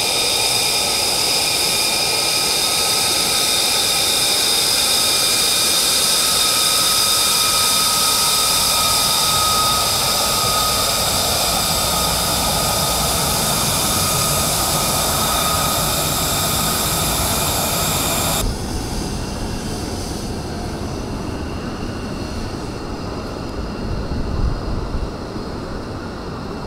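F-35 Lightning II jet fighters' turbofan engines running while the jets taxi: a loud, steady jet noise with a high whine of several held tones. About two-thirds through, it cuts suddenly to a quieter, lower rumble of jets taxiing.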